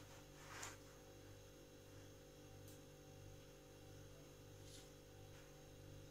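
Near silence: a steady low electrical mains hum, with a couple of faint, brief scrapes of chalk on a blackboard.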